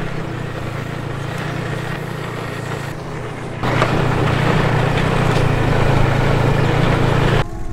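Snowmobile engine running steadily while riding across snow, a steady hum under a wide rushing noise; it becomes louder about halfway through.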